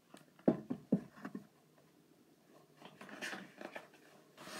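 A hardcover children's book being handled and turned around close to the microphone: two sharp knocks about half a second apart near the start, then scraping and rustling as the cover slides past.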